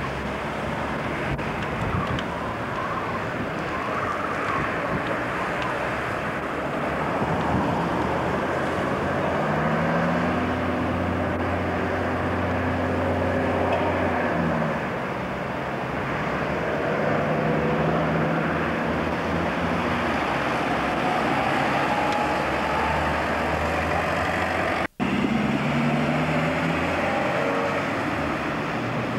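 Motor vehicle engine and road noise from a moving vehicle. The engine note rises and holds a few times as it accelerates through the gears. The sound cuts out for a split second about 25 seconds in.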